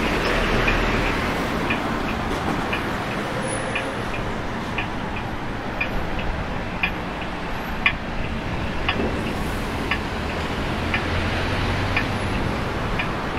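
Steady road traffic noise from passing cars, with light regular clicks about twice a second.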